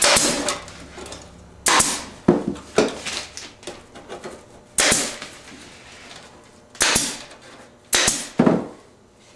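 Staple gun firing staples through woven wire mesh into plywood: a series of sharp snaps, about seven, at irregular intervals.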